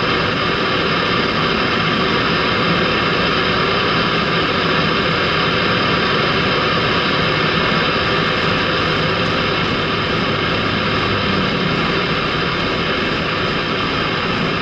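Steady engine and road noise of a vehicle cruising at highway speed, an even drone with no change in pace.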